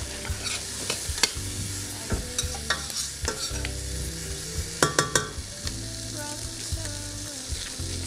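Vegetables sizzling in a stainless steel pot as a metal spoon stirs them, clicking and scraping against the pot. A cluster of louder clicks comes about five seconds in.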